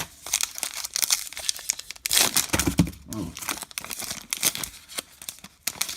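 A baseball card pack wrapper being torn open and crinkled by hand, a dense crackling that is loudest a little after two seconds in.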